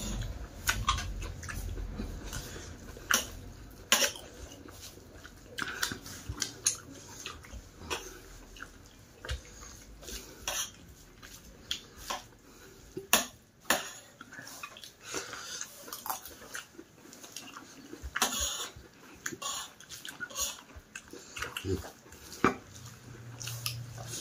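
Eating rice and curries by hand from a steel plate: fingers mixing and scraping food against the metal, and chewing with wet smacks, as many irregular soft clicks and squelches.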